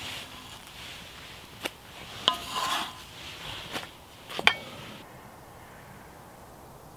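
Wooden spatula scraping and knocking on a cast iron skillet as pancakes fry in fat, with four sharp clicks over a steady sizzle. About five seconds in the sizzle cuts off suddenly, leaving only a faint outdoor hiss.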